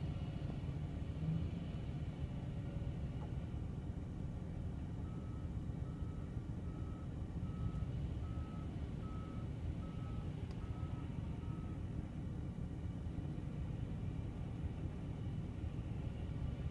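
Wheel loader working snow with a snow basket: a steady low engine rumble, heard through a vehicle's windshield. From about five seconds in, its reversing alarm sounds, about nine evenly spaced beeps over seven seconds.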